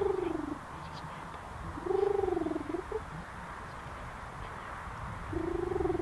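Low, rolling animal calls, each about half a second long, heard three times: at the start, about two seconds in, and near the end.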